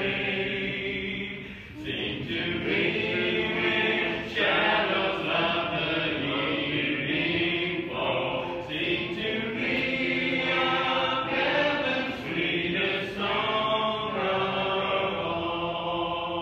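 A church congregation singing a hymn together, many voices holding long notes that change every second or two.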